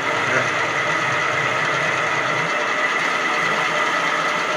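Motor-driven machinery running steadily with a high-pitched whine.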